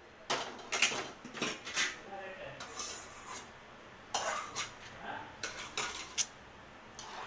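Metal kitchenware clinking: a string of short, light knocks as a steel strainer and spoon are handled against the rim of a pressure cooker and set down, in several small clusters.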